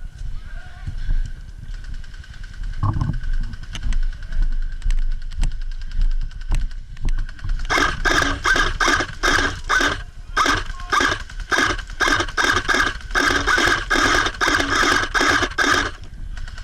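Airsoft electric gun firing a rapid string of single shots, about three to four a second, starting about eight seconds in and stopping near the end, over a low rumble of handling and movement.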